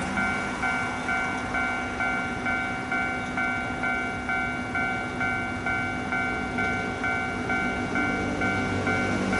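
Railway level-crossing warning bell ringing over and over, with about one and a half strikes a second. Near the end, the rumble of an approaching Hankyu 8300-series train rises underneath it.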